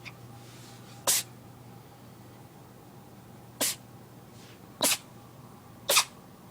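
A cat's sneezing fit: four short, sharp sneezes, the first about a second in and the last three coming closer together.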